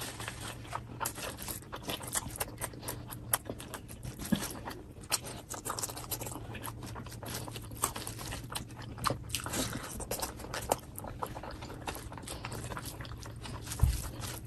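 A person chewing and biting food close to the microphone, with many short irregular crunches and mouth clicks, and one low thump near the end.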